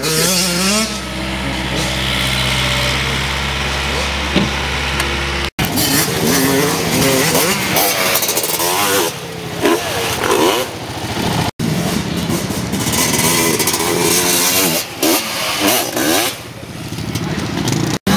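An engine running steadily. After a cut about five and a half seconds in, dirt bike and quad engines rev up and down, pitch rising and falling again and again. Another cut comes near the middle.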